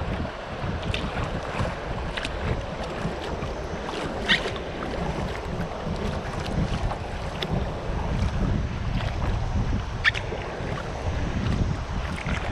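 Wind buffeting the microphone on a kayak, over water lapping and splashing around the hull, with a few short sharp splashes, the loudest about four seconds and ten seconds in.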